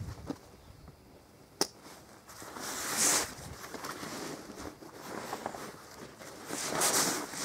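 Heavy-duty zips on an AIM Fieldsports 50 rifle drag bag being pulled shut, with two longer zip pulls about three and seven seconds in and a single sharp click after about a second and a half.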